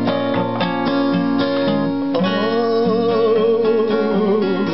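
Acoustic guitar strummed in a steady rhythm, with a man's voice singing one long held "oh" with vibrato from about two seconds in.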